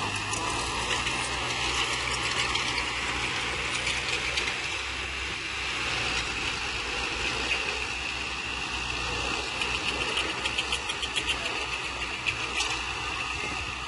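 Diesel engine of heavy earthmoving machinery running steadily, with a run of quick clicking rattles in the last few seconds.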